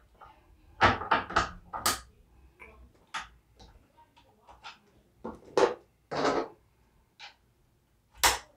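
Hands working parts on a Lee single-stage reloading press: a string of irregular clicks and knocks of metal and wood, with a short scrape about six seconds in.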